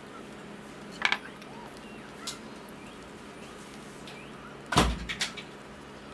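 A few sharp clicks and knocks from cutting and pulling apart baked chicken bread on a plate, with one heavier thump just before five seconds in and a few quick clicks after it, over a steady low hum.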